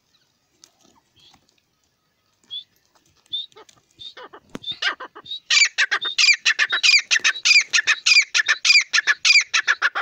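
Grey francolin calling: a few soft notes at first, building from about four seconds in into a loud, rapid run of shrill repeated calls, about four notes a second.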